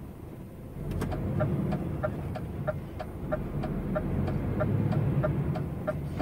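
A truck's turn-signal indicator ticking evenly, about three ticks a second, in the cab while the truck's engine pulls away from a junction for a left turn. The engine rumble grows louder about a second in.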